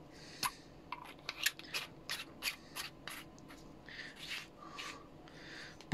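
Small aluminium screw-top key capsule being twisted and handled in the hands: a run of short, irregular scrapes and clicks from its threaded metal parts.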